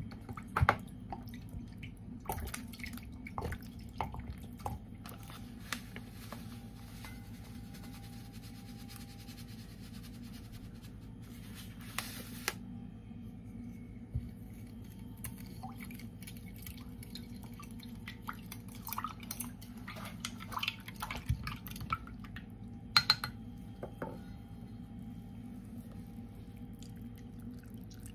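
Vinegar poured from a plastic bottle into a glass measuring jug, then a spoon stirring it with small clinks and knocks against the glass. A low steady hum runs underneath.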